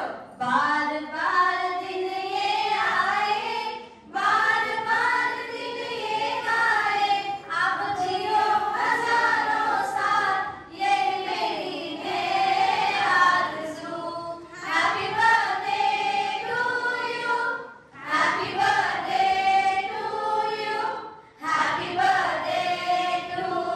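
A group of women singing a devotional song together into a microphone, in phrases with short pauses between them.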